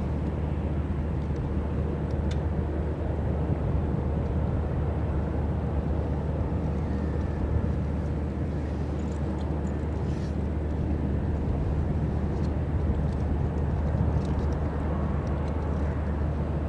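Steady low drone of a cruise ship's engines and machinery as she sails past, holding an even pitch and level throughout.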